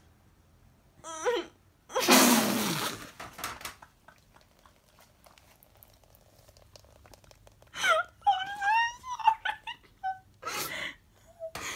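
A young woman crying into a tissue. There are loud breathy sobs and exhalations into the tissue, about two seconds in and again near the end, and high wavering, whimpering cries in between.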